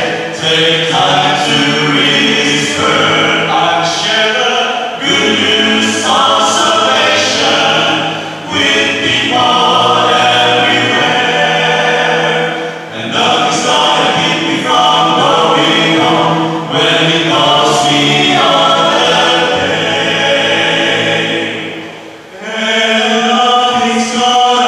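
Men's vocal group singing a gospel song in harmony through microphones, with brief breaths between phrases.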